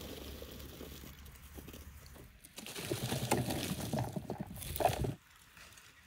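Fresh cherries poured from a woven straw basket into a plastic crate: a dense patter of fruit landing, louder from about two and a half seconds in, stopping abruptly near the end.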